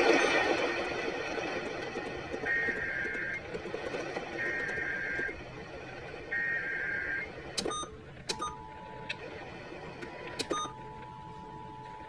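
Emergency Alert System signal played through an AM radio's speaker: three roughly one-second bursts of screechy digital header data about a second apart, then a steady alert tone that starts about eight seconds in and holds. A few sharp clicks come just before the tone starts, and a loud burst of sound opens the stretch.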